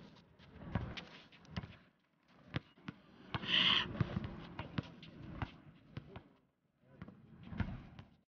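A basketball bouncing on an outdoor court, a string of irregular knocks as the ball is dribbled and played, with a short higher-pitched sound about three and a half seconds in.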